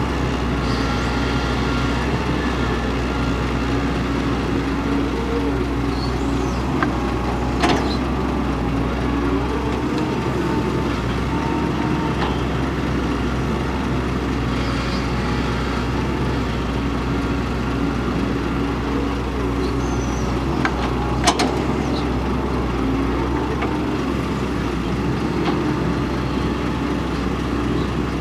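Kobelco excavator's diesel engine running steadily under working load, its pitch rising and falling as the machine works. Two sharp knocks stand out, one about eight seconds in and one about twenty-one seconds in.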